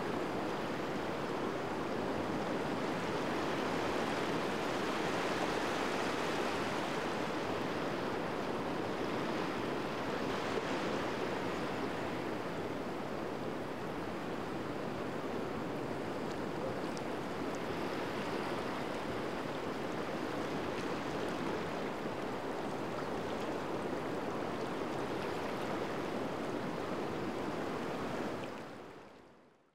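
Steady rush of ocean surf, swelling and easing slightly, fading out near the end.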